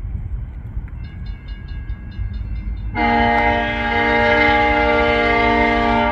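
Diesel locomotive's air horn sounding one long blast of about three seconds, several chime notes at once, starting about halfway through. Under it a bell rings about four times a second.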